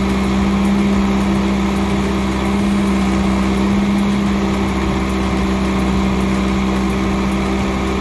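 John Deere backhoe loader's diesel engine running at a steady speed, with an even hum that does not rise or fall.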